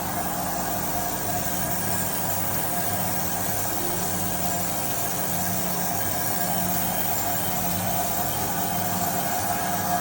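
Crankshaft grinding machine running steadily while its grinding wheel takes a final finishing cut on a crankshaft main journal.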